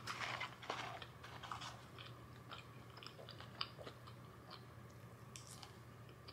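A person chewing fried chicken nuggets, faint crunching and mouth clicks, strongest in the first couple of seconds and then fainter and more scattered.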